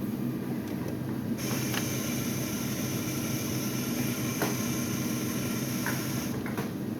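Self-serve iced coffee machine dispensing: a steady hiss with a high tone starts about a second and a half in and cuts off near the end, with a few clicks, over a constant low machine hum.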